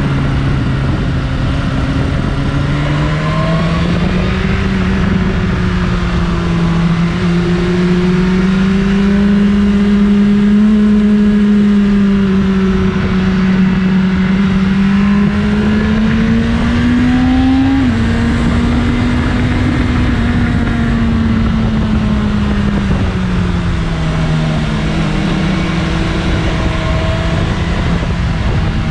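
BMW S1000RR inline-four engine running through its stock exhaust. The pitch climbs and falls gradually over several seconds, and drops suddenly a little about eighteen seconds in.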